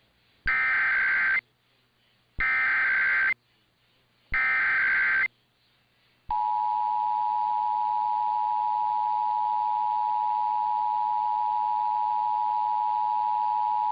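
Emergency Alert System tones: three short SAME header data bursts, each about a second long with gaps between them. About six seconds in, the steady two-tone EAS attention signal starts and holds unchanged.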